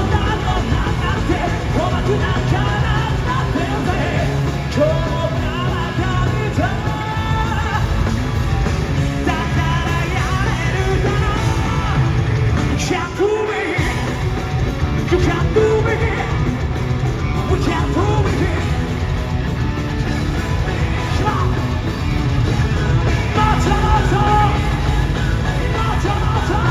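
Live rock band playing loudly, electric guitar and drums driving, with shouted and sung voices over the top. The bass and drums drop out for about a second midway, then the band comes back in.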